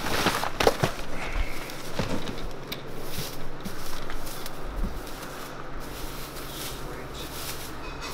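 Crumpled brown packing paper and a plastic bag rustling and crackling as a boxed fuel cell is lifted out and unwrapped, with a few sharper crackles in the first second.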